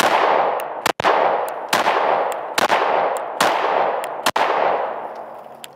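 Smith & Wesson M&P 5.7 pistol firing 5.7x28mm rounds: about six shots, roughly one a second, each sharp crack followed by a long echo. The last echo dies away near the end.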